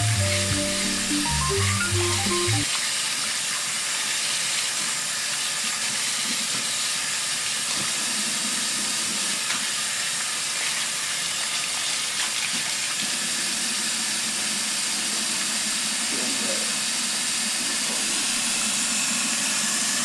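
A short stretch of music for the first couple of seconds, then a steady, even hiss of water running from a tap.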